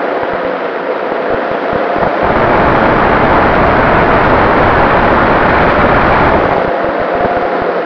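Wind rushing over the onboard camera microphone of a radio-controlled model Cessna 188 in flight, with its motor and propeller running steadily underneath. The rush swells about two seconds in and eases off near the end.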